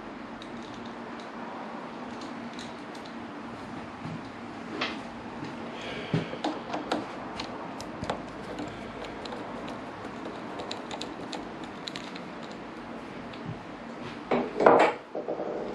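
Small screwdriver undoing the cap screws on a motorcycle front brake fluid reservoir, with light metallic clicks and ticks. Near the end come a few louder clatters as tools or parts are set down on a wooden workbench.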